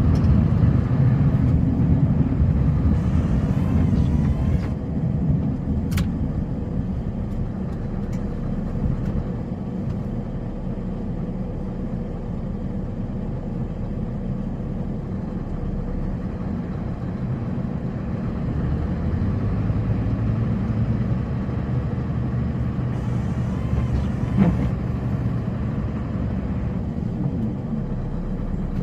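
Engine of a snow-plowing vehicle running steadily while it pushes snow. It is louder for the first few seconds, then settles to an even drone, with a faint click now and then.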